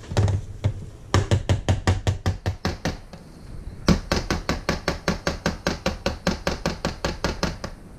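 Stick blender worked up and down through thick hot-process soap in a slow-cooker crock, mixing in the lavender oil: quick, even knocks about six a second in two runs, with a louder knock about four seconds in.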